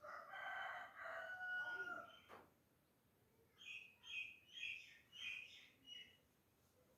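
Faint bird calls: one long drawn-out call of about two seconds that falls a little at the end, then a run of about six short, higher chirps.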